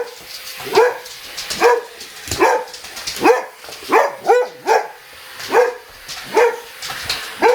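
Boxer dog barking over and over at a vacuum cleaner, about one deep bark a second, with a quicker pair near the middle.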